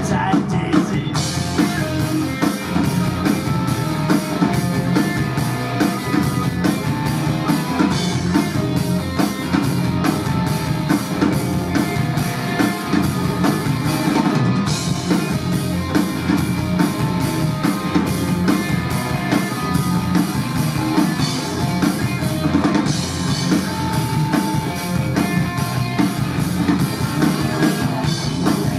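A live rock and roll band playing: electric guitars, electric bass and a drum kit keeping a steady beat. The cymbals come in about a second in.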